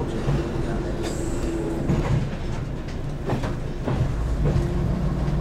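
Diesel multiple unit under way, heard from the cab: a steady engine drone over rail noise, with a few sharp knocks from the wheels.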